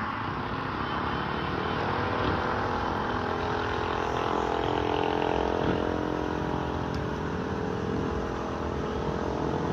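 Steady running noise from an engine or motor, even throughout, with a constant hum of several pitches over a wide rushing sound.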